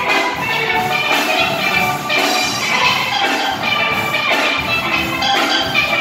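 A steel band playing live: several steelpans of different sizes struck with mallets in a quick run of bright notes, with a drum kit keeping the beat underneath.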